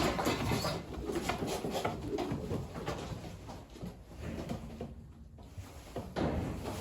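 Racing pigeons cooing, with scattered short clicks and knocks.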